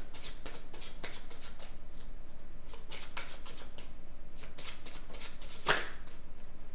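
A deck of astrological oracle cards being shuffled by hand, overhand, giving quick runs of soft card flicks and slaps, with one louder snap near the end.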